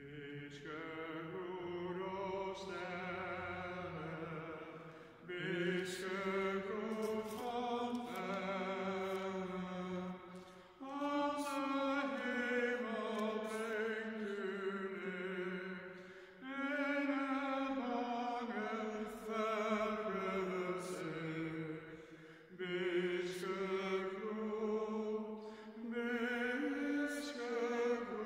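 A single man's voice singing a slow liturgical chant in phrases of about five seconds with short breaks for breath, the held notes wavering with vibrato.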